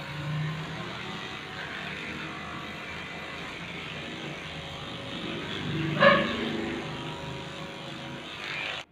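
Electric pet hair clippers running steadily while shaving a puppy's coat. There is one brief loud sound about six seconds in, and the buzz cuts off abruptly near the end.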